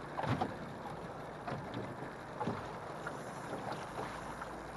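Small waves slapping against an aluminum jon boat's hull as it rocks in the chop, with irregular knocks over a steady wash of water and wind on the microphone.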